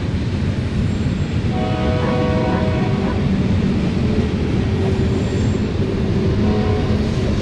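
Boxcars of a BNSF manifest freight train rolling past, with a steady heavy rumble of wheels on rail. About a second and a half in, a pitched tone made of several notes together sounds for about a second and a half over the rumble.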